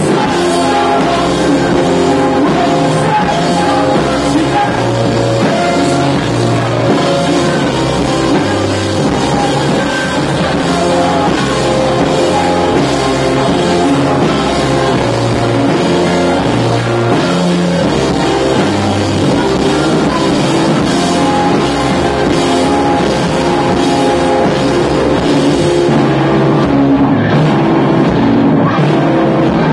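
Live rock band playing a song at full volume: electric guitars and drum kit, with some singing.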